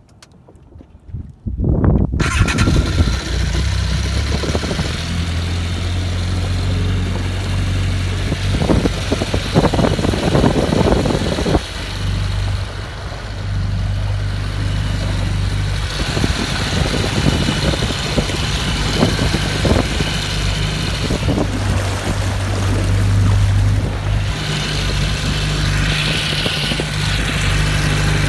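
Honda AquaTrax R-12X jet ski's turbocharged four-cylinder four-stroke engine starting about a second and a half in, then running steadily with the engine bay open.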